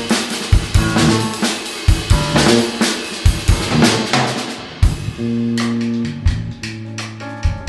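Live band playing an instrumental passage driven by a drum kit: kick, snare and cymbals hit busily, then about five seconds in the cymbal wash drops away and held low notes and chords ring under sparser drum hits.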